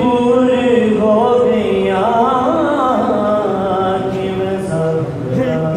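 A man chanting a Muharram noha (lament) in Punjabi, unaccompanied, in long held notes whose pitch wavers around the middle.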